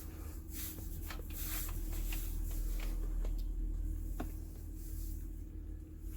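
Scattered light clicks and rustling of handling over a steady low hum.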